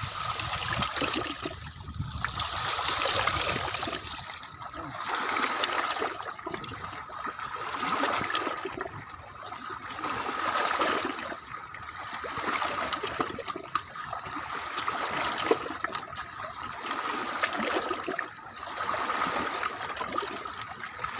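Small sea waves washing and splashing against shoreline rocks, swelling and falling every two to three seconds. A knife scrapes scales off a large fish among them.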